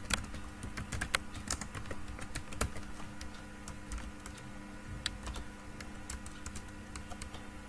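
Typing on a computer keyboard: irregular runs of keystroke clicks, busiest in the first few seconds and sparser after.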